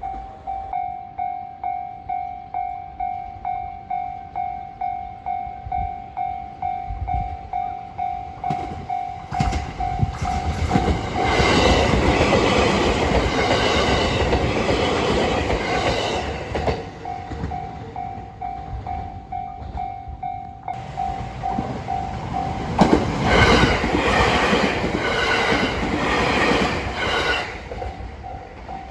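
A Japanese level-crossing warning bell sounding its steady electronic ding about twice a second. Two trains pass over the crossing, one after the other, each drowning out the bell, the second with a run of wheel clacks over the rail joints. The bell is still ringing after the second train.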